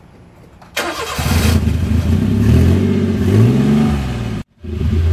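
Honda Acty mini truck's carbureted engine cranked and started, catching about a second in and then revved unevenly, its pitch rising and falling. It runs on a carburetor flooding with fuel from a stuck needle valve, running rich and not running consistently. The sound cuts out briefly near the end, then the engine is heard again.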